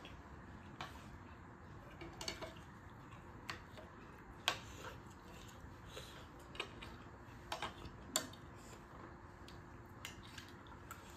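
Metal spoons and forks clinking and scraping against ceramic plates: a dozen or so irregular, sharp clinks over a quiet room.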